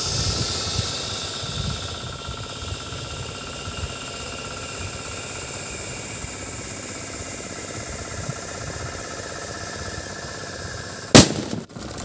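Homemade firecracker hissing steadily as it burns and jets smoke, the hiss fading slightly over the first couple of seconds. It then goes off with one loud bang about eleven seconds in.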